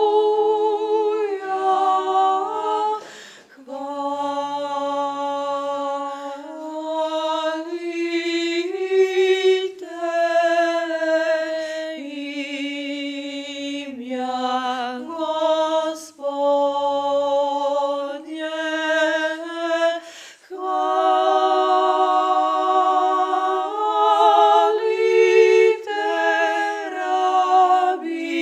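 A cappella choir singing slow, held notes in harmony. The pitch moves in steps, with brief pauses between phrases.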